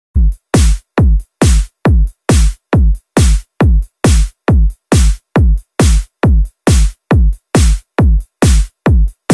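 Electronic dance music reduced to a bare kick drum: a steady, loud four-on-the-floor beat, a little over two beats a second, each a short thud falling in pitch, with clean gaps between.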